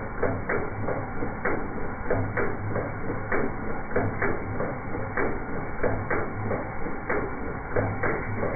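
1978 Datsun 280Z's L28 straight-six running with an irregular beat of sharp ticks, about two or three a second, over a low pulsing drone. The engine is misfiring, and the uploader puts this down to a sloppy valvetrain.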